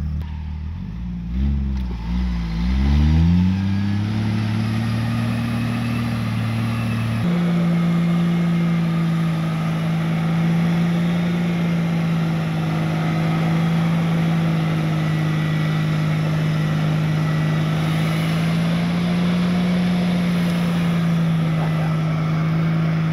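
A vehicle engine running under way. Its pitch dips and rises over the first few seconds, then holds steady, then changes abruptly to a new steady note about seven seconds in.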